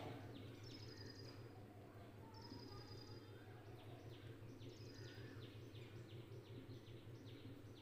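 Near silence: faint room tone with a steady low hum and a few faint, high chirps every couple of seconds.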